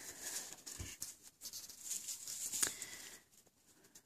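Faint rustling with scattered light clicks and knocks, a dull thump about a second in and a sharper click a little past the middle.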